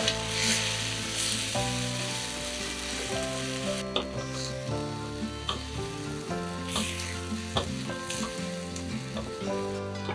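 Egg and grated carrot sizzling in a frying pan, the hiss strongest in the first few seconds, with a spatula scraping and knocking against the pan. Soft background music plays underneath.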